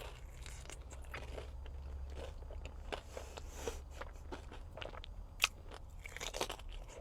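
Close-miked biting and chewing of a breadcrumb-coated fried mozzarella stick: crisp crunches of the coating mixed with chewing, with one sharp crunch about five and a half seconds in.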